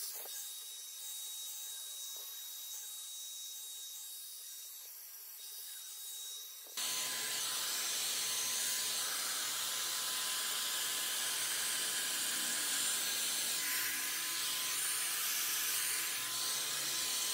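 Agaro volumizer hot-air brush running: a steady rush of blown air with a thin high whine, a sound the user finds annoying. About seven seconds in it gets clearly louder, and the whine drops to a lower pitch and holds steady.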